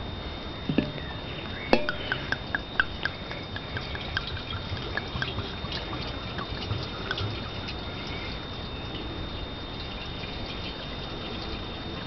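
Fuel being poured from a glass bottle into a bicycle engine's fuel tank through the filler hole. About two seconds in there is a click, then a run of glugs and drips several a second for a few seconds, and after that a steady trickle.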